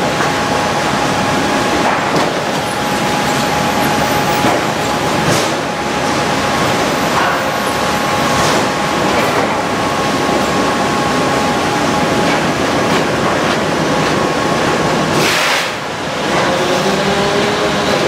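Sawmill log-handling machinery running: the chain conveyors of the log deck rattling and clanking as a large oak log is carried onto the log carriage, over a steady machine hum with thin whining tones. Scattered knocks, and a short hiss about fifteen seconds in.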